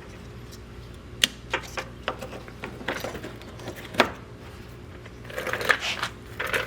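Scattered sharp clicks and knocks of small parts being handled as a side marker light is worked off a car's front fender, with a short stretch of scraping and rustling near the end.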